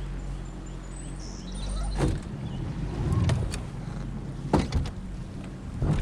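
An engine running steadily with a low hum, with a few sharp knocks about two seconds in, past the middle, and near the end.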